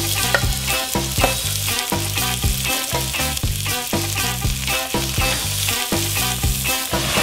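Chopped onions sizzling in hot oil in a pot as they sweat, a steady hiss, under background music with a rhythmic bass line.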